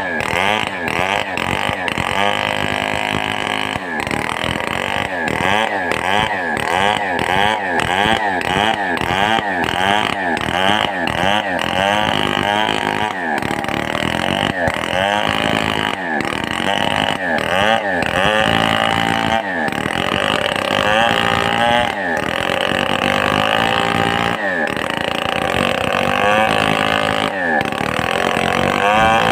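Stihl 070 two-stroke chainsaw cutting timber, its engine pitch rising and falling over and over as the bar works through the wood. The swings are quick through the first half and longer and steadier later.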